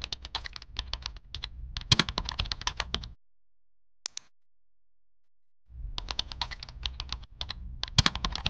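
Computer-keyboard typing sound effect: a quick run of key clicks for about three seconds, a short double click about four seconds in, then another run of typing from a little past halfway to the end.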